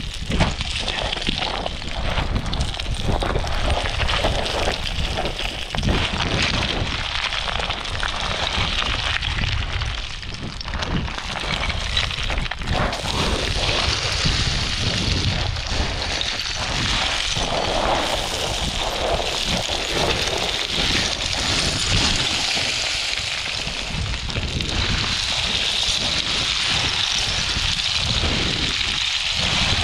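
Footsteps crunching on loose rock scree, with small stones clattering and shifting underfoot at walking pace, over a steady low rumble of wind on the microphone.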